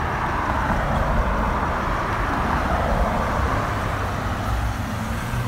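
Steady rushing noise of road traffic going by, over a low rumble; it swells a little in the middle and eases towards the end.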